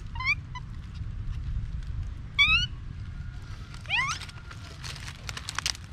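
Young macaque giving three short, high, rising squeaks, the second the loudest. Dry leaves crackle and rustle near the end.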